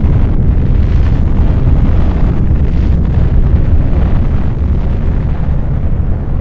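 Long, deep rumble of an atomic bomb explosion, loud and steady and slowly fading toward the end.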